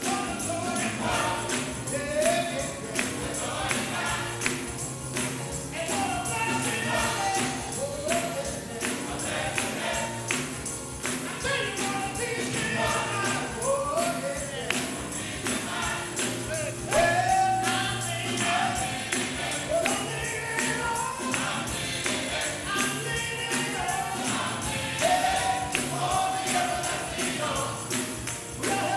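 Gospel choir singing with a tambourine shaken in a steady beat.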